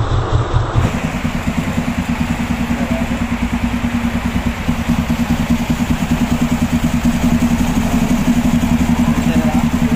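TVS Ntorq 125 scooter's single-cylinder four-stroke engine idling steadily with a fast, even beat, running again just after a timing chain replacement.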